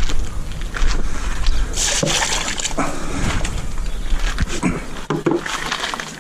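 Water tipped out of a clear plastic storage box, splashing onto the ground, with a strong splash about two seconds in. Clicks and knocks of the plastic box being handled, over a steady low rumble.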